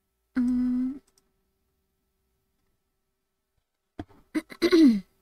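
A person's thinking hum, "mmm", held at one steady pitch for about half a second. Near the end come a few mouth clicks and a short vocal sound that falls in pitch.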